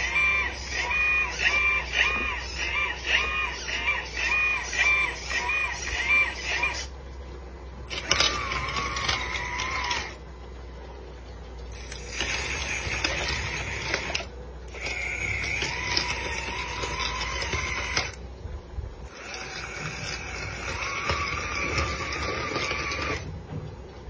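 Electric hydraulic pump and drive motors of a metal RC hydraulic excavator whining. For the first seven seconds the whine pulses about twice a second; then it runs in steady spells that stop and start several times, going quiet between moves as the pump drops into standby.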